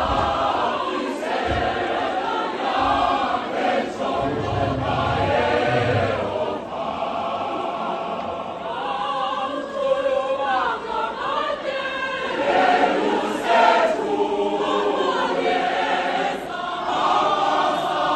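A choir singing, many voices together in harmony, with a few low thuds in the background about four to six seconds in.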